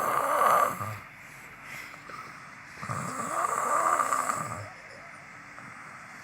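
A sleeper snoring in slow, even breaths: one snore trails off in the first second, and a second long snore comes about three seconds in.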